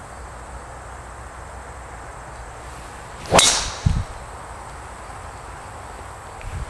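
A golf club swung hard through the air: one sharp swish about halfway through, followed half a second later by a low thud.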